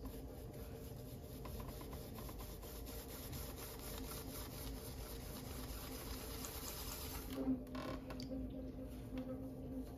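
Electric pottery wheel motor humming steadily while wet clay rubs and squishes under the hands on the spinning wheel, with a brief knock about seven and a half seconds in.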